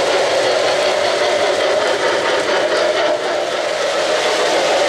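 Lionel O-gauge three-rail model train running, its metal wheels rolling steadily along the track with a continuous, even running noise.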